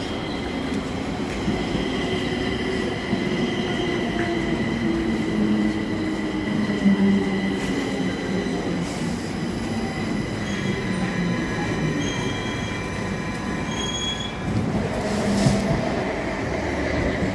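Stockholm metro train running through the station, its wheels giving a steady high squeal over the running rumble. Near the end a light-rail tram is heard instead.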